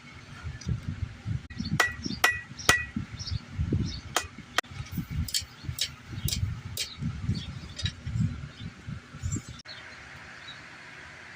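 Blacksmith's hammer striking hot steel bar on an anvil: a run of sharp metallic clinks, some ringing briefly, mixed with duller thuds. The hammering stops about ten seconds in, leaving a steady hiss.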